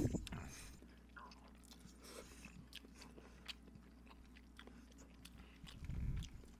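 Close-miked mouth sounds of people eating spicy noodles: a loud noodle slurp right at the start, then soft chewing with small wet clicks. A low muffled sound comes near the end.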